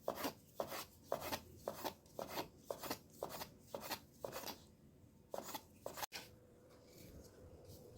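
Repeated rasping scrapes, about two strokes a second, that stop about six seconds in, leaving only a faint hum.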